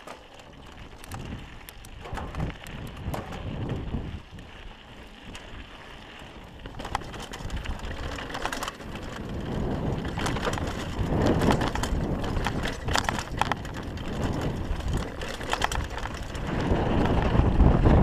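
Downhill mountain bike descending a rocky dirt trail: tyres crunching over gravel and stones and the bike rattling, with rushing wind on the microphone. It gets louder as speed builds and is loudest near the end over the rocky section.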